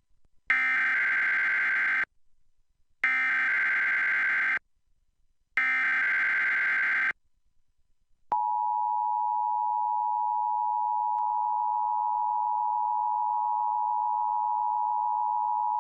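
Emergency Alert System SAME header: three bursts of rapid warbling data tones, each about a second and a half long. Then, about eight seconds in, the EAS two-tone attention signal starts as a steady, piercing dual tone that holds to the end. Together they mark the start of an EAS required monthly test.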